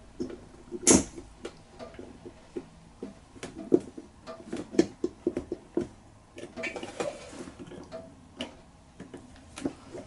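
Small irregular metallic clicks and taps of pliers working at the carburetor linkage of a Honda VFR400R, getting at a thin cotter pin. The sharpest click comes about a second in.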